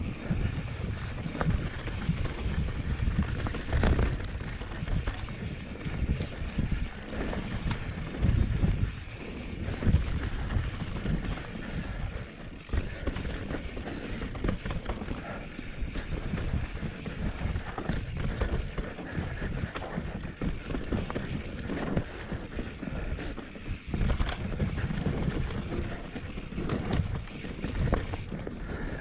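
Mountain bike riding fast down a dirt singletrack: wind buffeting the microphone over the rumble of tyres on dirt, with frequent knocks and rattles from the bike over bumps.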